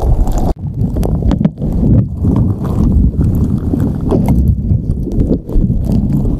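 Slime squished and pressed directly over a microphone, giving loud, dull squelching and rubbing, mostly deep in pitch. There is a brief break about half a second in.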